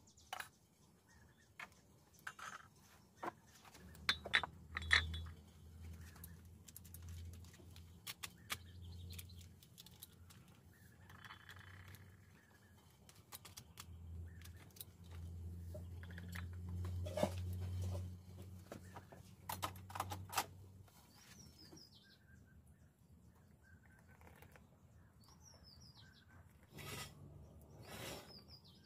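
Kitchen utensils clicking and clinking: chopsticks knocking against a small steel cup and metal cookware being handled, in many short sharp knocks. Birds chirp a few times in the second half, and a low hum runs underneath for much of the first two-thirds.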